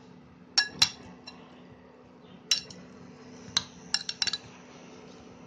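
Spoon clinking against a glass bowl while raw chicken pieces are stirred in lemon juice for a marinade: scattered sharp clinks, several in quick succession about four seconds in.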